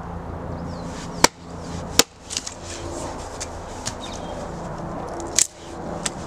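A wooden baton striking the back of an axe head to split a stick: three sharp knocks, about one, two and five and a half seconds in, with a few lighter taps between.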